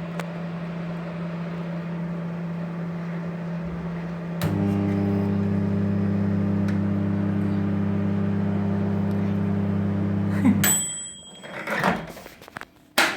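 Microwave oven running on medium-high power with a steady electrical hum. The hum weakens for about four seconds as the power cycles off, then comes back. It stops about ten and a half seconds in with a short high beep, followed by handling noises and a sharp click near the end.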